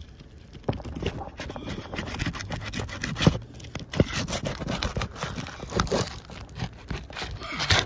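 Metal pry tool tapping and scraping under an asphalt shingle to break its seal and work it loose, with irregular sharp taps and scrapes and a couple of louder knocks around three to four seconds in. The shingle is brittle enough to crease and crack as it is pried.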